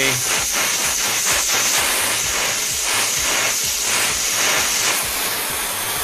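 Handheld gas torch flame hissing steadily with a fast low flutter as it heats a pipe joint to melt a brazing ring. The high hiss eases a little near the end.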